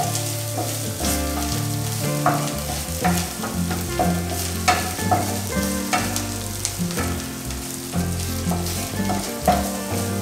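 Chopped onions, green chillies and spice powders sizzling in oil in a nonstick kadai while a wooden spatula stirs them, scraping and tapping against the pan every second or so. The masala is being sautéed with the spices.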